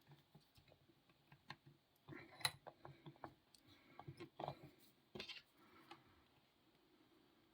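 Faint, scattered small metal clicks and taps of lock picks being handled and set into the keyway of a Marksman 60mm padlock, a few of them a little louder about two and a half, four and a half and five seconds in.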